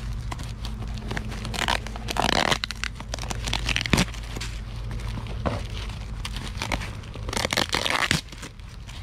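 Parcel packaging being torn and crumpled by hand: long rustling tears about two seconds in and again near the end, scattered crinkles, and a sharp snap about four seconds in, over a steady low hum.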